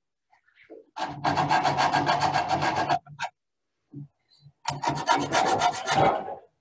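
Quick, even back-and-forth abrading strokes of a hand tool along the edge of an oar blade, trimming a little more off so a Vortex Edge will fit. The strokes come in two bursts, the first about two seconds long and the second shorter, with a pause of over a second between them.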